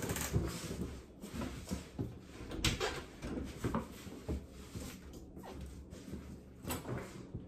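Clothes and a laundry bag rustling and knocking as laundry is gathered and carried, irregular clicks and bumps throughout. Near the end the knob and latch of a wooden door click as it is opened.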